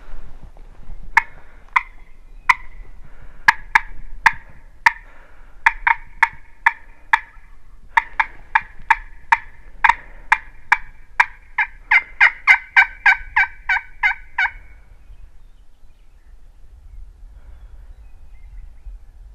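A hunter's hand-worked turkey call giving a long run of hen-like yelps to a gobbler, spaced about a second apart at first, then quickening to about three a second before stopping about fourteen seconds in.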